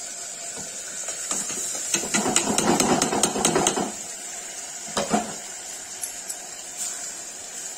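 Metal kitchenware knocking and scraping against a pressure cooker as tomato-onion puree is emptied into it: a quick run of knocks from about two to four seconds in, then two more about five seconds in.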